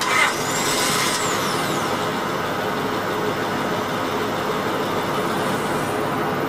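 Honda V6 engine idling steadily in a shop, under an even mechanical hum. Right at the start comes a short hiss with a high whine that rises and then falls over about a second and a half, the loudest moment.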